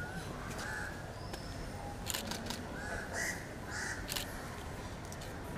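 Crows cawing repeatedly, short harsh calls a second or so apart, with a few sharp clicks in between.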